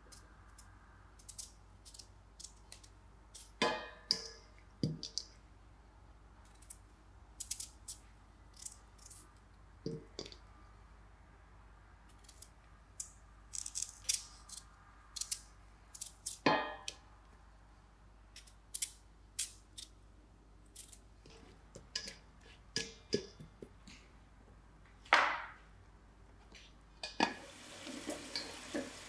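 Kitchen work sounds: scattered clicks, taps and knocks of utensils and dishes, with the loudest knock a few seconds before the end. Near the end a tap starts running.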